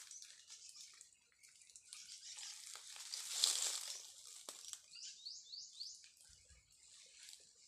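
Rustling and crinkling of a backpack being handled and slung on, loudest about three and a half seconds in. A bird gives a few quick rising chirps about five seconds in.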